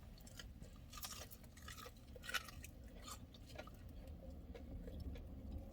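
Someone chewing and biting crunchy fried chicken, a few faint crisp crunches with the clearest about a second in and another about two and a half seconds in.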